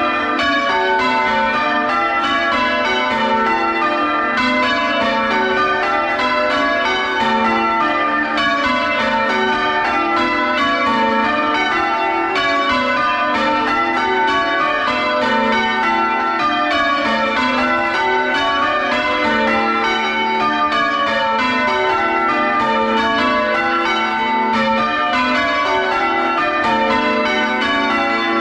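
The front six (lightest) church bells of the tower's ring being rung full circle in change ringing, heard from inside the bell chamber: a loud, steady, unbroken succession of overlapping bell strikes.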